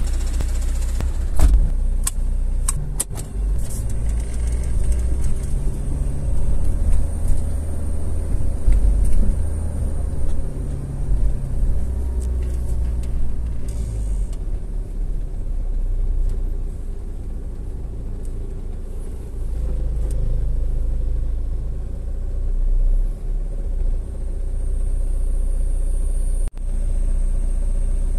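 Steady low rumble of a car's engine and road noise, heard from inside the cabin while driving. A few sharp clicks and knocks come in the first few seconds.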